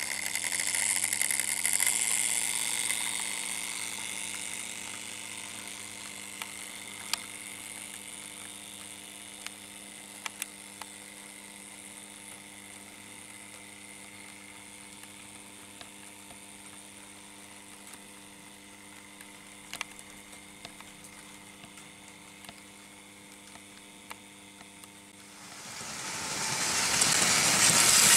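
Märklin H0 model train running on metal M-track: the steam locomotive's wheels and motor rattle loudly as it passes close, then fade as it pulls its coaches away, over a steady electric hum, with a few sharp clicks as wheels cross rail joints. Near the end a second train, an electric locomotive with freight wagons, approaches and quickly grows loud.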